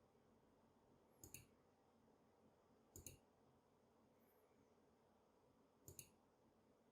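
Three separate key presses on a HyperX Alloy Origins Core mechanical keyboard, each a quick double click as the key goes down and comes back up. They are spaced about two to three seconds apart and sound faint.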